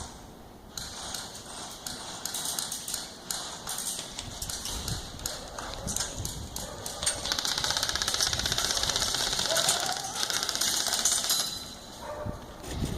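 Airsoft guns firing: scattered single clicks, then a long rapid burst of full-auto fire from about seven seconds in, stopping about four seconds later.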